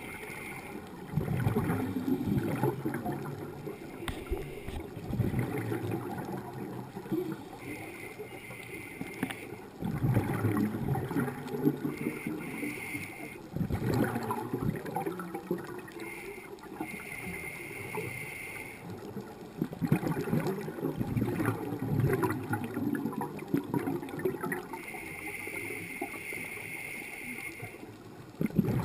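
Scuba regulator breathing underwater: a hissing inhale alternates with a bubbling rumble of exhaled air, one breath every several seconds.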